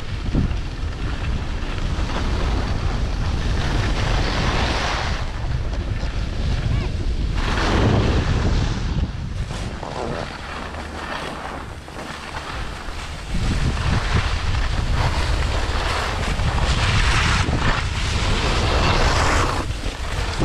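Wind buffeting the microphone while skiing downhill, with skis scraping across packed snow that swells into a louder hiss several times during turns.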